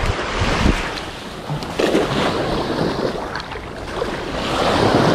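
Small waves washing up the beach in the shallows, swelling twice, with wind buffeting the microphone.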